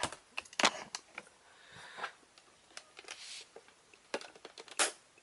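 Plastic toy packaging being handled and cut open: scattered light clicks, taps and rustles of the cardboard box and plastic blaster, with a few sharper clicks, the loudest about five seconds in, as small cutters work at the ties holding the toy to its backing card.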